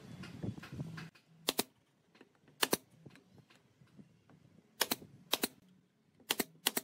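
Handheld DCA electric nail gun firing brads into a pine brace strip, a series of sharp shots, several in quick pairs. Rustling of wood being handled comes before the first shot, about a second in.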